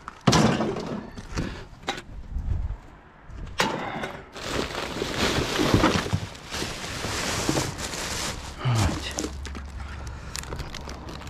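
Rubbish being handled in a dumpster: a few sharp knocks in the first seconds, then a stretch of rustling and clattering. A low steady hum comes in near the end.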